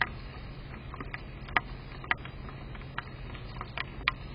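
Rain heard through an outdoor security camera's small microphone: a steady low rumble and hiss with irregular sharp ticks of raindrops landing close to the microphone, about two a second.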